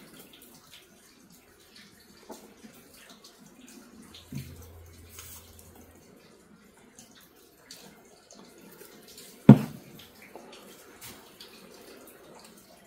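Quiet workbench handling sounds as wood glue is applied to a loose hardwood strip, with one sharp knock about nine and a half seconds in.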